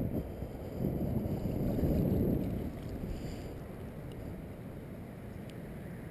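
Low rumbling wind noise on the microphone, swelling about a second in and easing off after about two and a half seconds.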